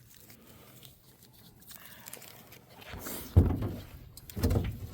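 Faint rustling, then from about three seconds in a series of low thumps and knocks, the loudest one just after the three-second mark.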